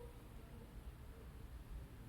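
Near silence: a faint steady low background rumble, room tone with no distinct events.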